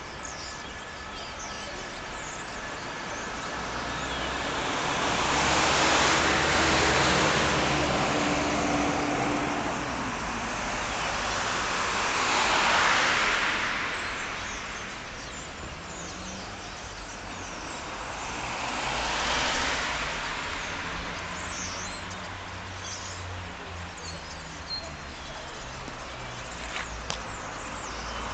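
Street traffic: cars passing one after another, the noise swelling and fading away three times, with a few short high chirps in the later part.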